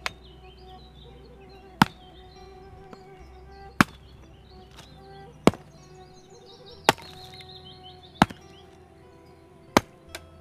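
Dry firewood being split with a hand-held blade: seven sharp chops, one every one and a half to two seconds, with birds chirping behind.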